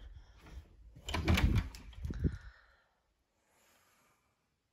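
Bedroom closet door being opened: a cluster of knocks and rattles about a second in, then a shorter knock.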